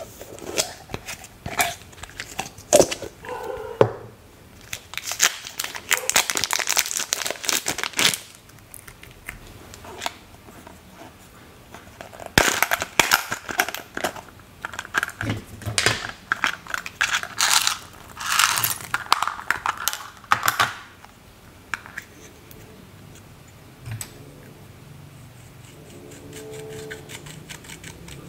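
Plastic packaging crinkling and tearing in bursts of crackly noise as small plastic toy containers are handled and opened. Near the end, quieter scraping as a metal-tipped tool breaks up a pan of pressed eyeshadow.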